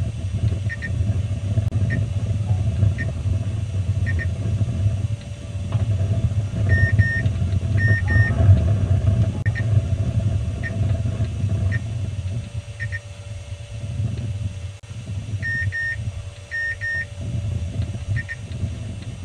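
Short, high electronic beeps repeating about once a second, some single and some in quick pairs or double pairs: the beeper of the rocket's onboard flight electronics. A steady low rumble runs underneath.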